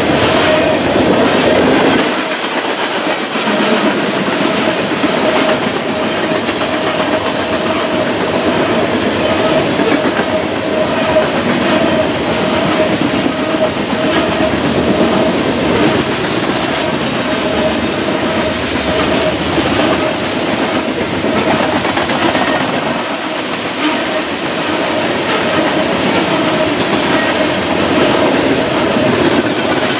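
Covered hopper cars of a BNSF freight unit train rolling past at close range, steel wheels clicking and rumbling on the rails, with a steady tone running through much of the passage.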